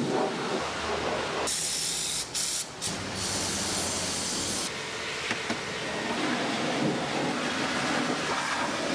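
Air-fed undercoating spray gun hissing as it sprays bitumen anti-rust coating for about three seconds, starting about a second and a half in and cut off briefly twice. Steady background noise fills the rest.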